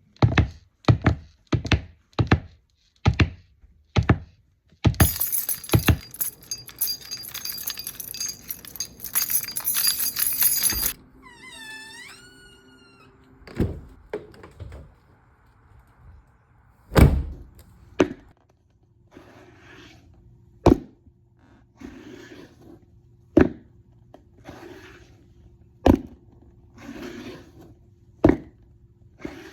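Foley sound effects made with props: a run of sharp knocks about twice a second, then several seconds of dense crackling and rattling, a few short squeaky chirps, and then single heavy thuds every two or three seconds with soft scuffing between.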